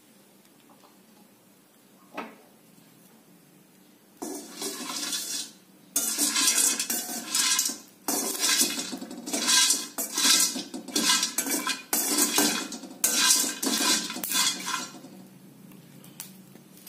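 A steel spatula scraping and stirring whole star anise and marathi moggu (kapok buds) around a stainless steel kadai as they dry-roast. It goes in repeated strokes about one a second, starting about four seconds in after a faint clink.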